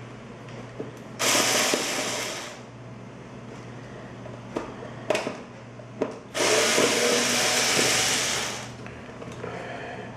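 Handheld electric power tool, such as a drill-driver, run in two bursts, a short one about a second in and a longer one of over two seconds past the middle, with a few light clicks and taps between them.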